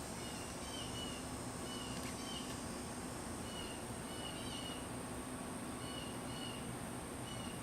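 Honeybees humming steadily around an open hive. A bird gives short high chirps, often two close together, every second or so.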